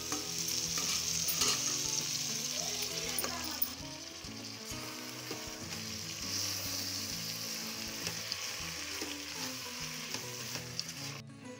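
Raw chicken pieces sizzling as they fry in hot oil with an onion-tomato masala in an electric rice cooker's non-stick inner pot, a steady hiss that cuts off abruptly near the end.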